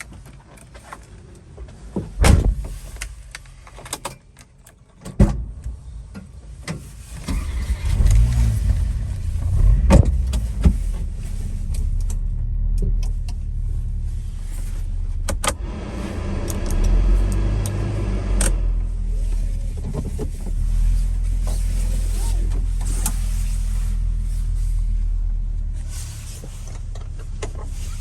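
The Subaru Sambar's supercharged EN07 four-cylinder engine runs with a steady low drone, revving up and down a few times about eight to eleven seconds in. Two sharp knocks come before it, about two and five seconds in.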